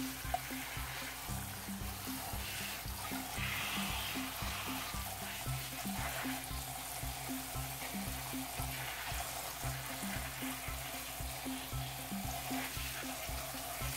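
Tap water running and splashing onto garlic chives being rinsed by hand in a stainless steel bowl, over background music with regularly repeating low notes.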